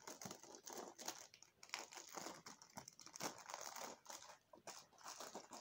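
Faint crinkling and small scattered clicks of Lego pieces and their packaging being handled.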